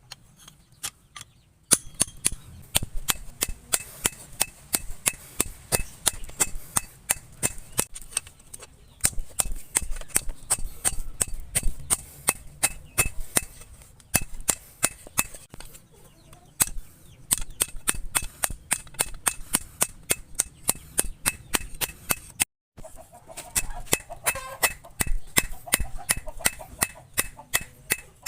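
Hammer blows on steel at an anvil, many quick strikes in a steady working rhythm, each ringing briefly, as the bearing steel is drawn out into a machete blade; they pause briefly once, a little over two thirds of the way in.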